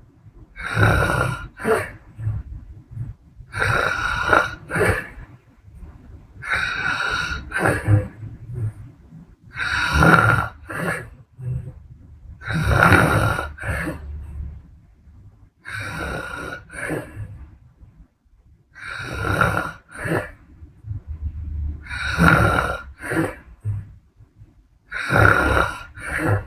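A sleeping woman snoring in a steady rhythm, about one breath every three seconds. Each breath is a low rattling rumble followed by a louder breathy hiss.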